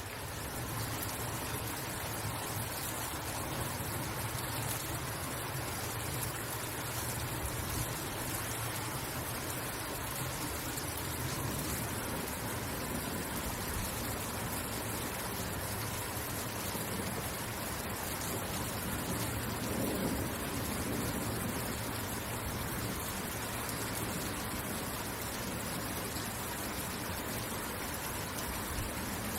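Rain falling steadily, an even hiss with a low rumble beneath.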